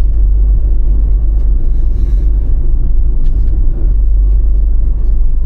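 Micro camper van driving, a steady low engine and road rumble.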